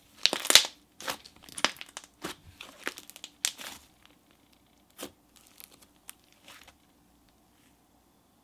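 Hands pressing and squishing a thick blue slime with pink sprinkles mixed in, giving a quick run of crackling pops that thin out and stop about two-thirds of the way through.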